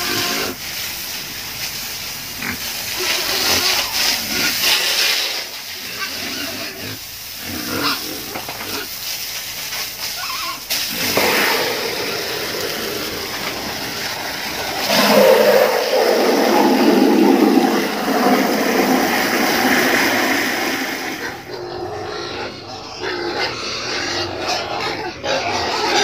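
Pigs vocalizing while a hose sprays water over them and the concrete floor, the water hissing and splattering. The sound gets louder and fuller for a few seconds in the middle of the stretch.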